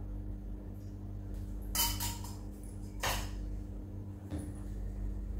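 Cookware clattering briefly in a kitchen: two short clatters about two and three seconds in, then a lighter knock a little after four seconds, over a steady low hum.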